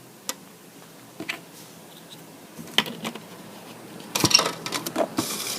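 A spoon clicking against a container: a few separate taps, then a busier clatter of clicks and scraping from about four seconds in.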